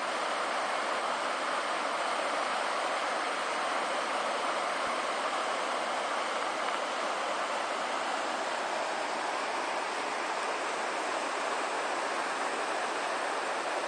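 River rapids rushing steadily, white water pouring over rocks in a shallow, fast-flowing river.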